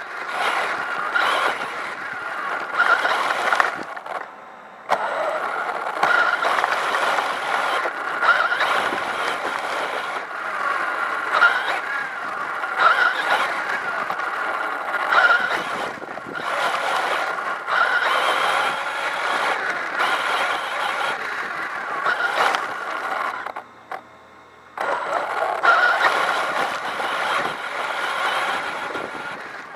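Kyosho Inferno VE electric RC buggy driving over grass, heard from close by: the brushless motor and drivetrain whine, with rough surging noise as it runs and bounces over the turf. Twice the sound drops away for about a second.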